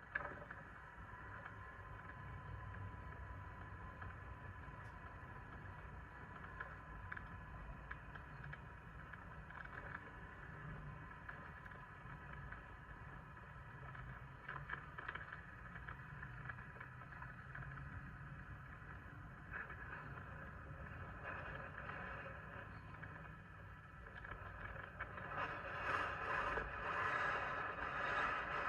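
Sur-Ron electric dirt bike running, its motor giving a steady whine, with wind rumbling on the microphone. The whine grows louder near the end.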